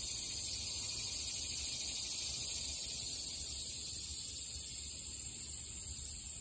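Steady high-pitched outdoor insect chorus, unchanging throughout, over a low rumble.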